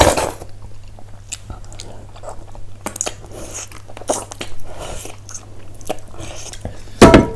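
Close-miked eating: biting and chewing buffalo trotter, with scattered crunches and a louder thump near the end.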